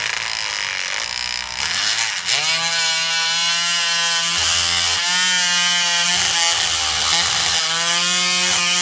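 Ridgid oscillating multi-tool with a multi-purpose blade plunge-cutting a groove along the seam of a glued-down hardwood floor plank: a loud, steady buzzing whine. Its pitch rises about two seconds in, then holds with slight wavers as the blade bites into the wood.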